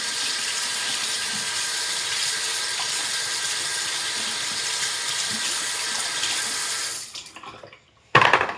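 Water running from a sink tap as a toothbrush is rinsed under it, a steady hiss that stops about seven seconds in. A sharp knock follows near the end.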